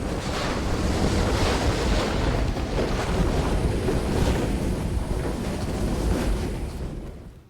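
Strong wind blowing with a deep rumble, fading out near the end.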